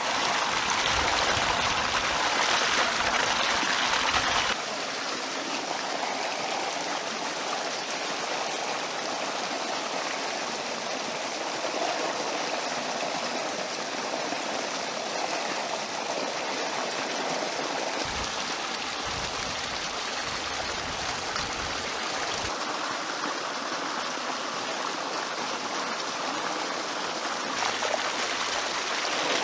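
Water gushing in a strong, steady stream from an outlet and splashing into a stone tank. It is loudest for the first four seconds or so, then holds at a slightly lower, even level.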